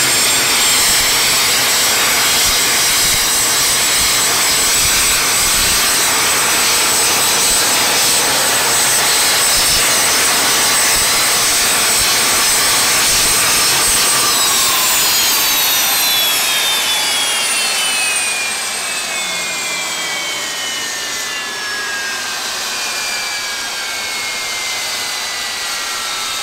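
GTD-350 helicopter turboshaft (gas turbine) engine running with a loud rushing noise and a high whine. About halfway through it is shut off, and the whine falls steadily in pitch as the turbine spools down in a long run-down.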